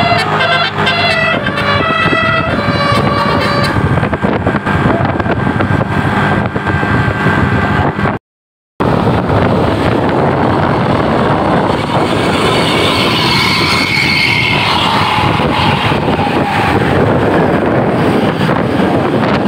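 Tour bus's telolet horn playing a quick tune of stepped notes for the first few seconds, then the bus's engine and road noise. The sound drops out completely for about half a second a little before halfway.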